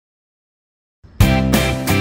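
Silence, then background music with a steady beat starts abruptly about a second in.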